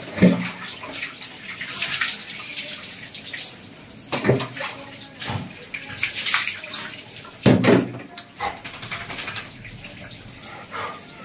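Water poured over a wet Labrador's back, splashing down onto a tiled floor in several separate pours.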